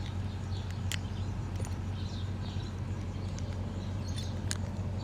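A steady low hum with a few light clicks of the metal puck lock and hasp being handled, and faint chirps in the background.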